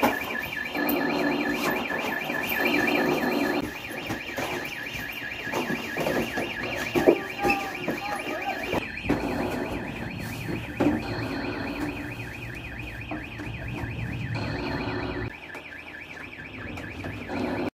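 An electronic alarm sounding a rapid, pulsing high tone without a break, over a din of commotion with scattered knocks and bangs, the sharpest about seven and eleven seconds in.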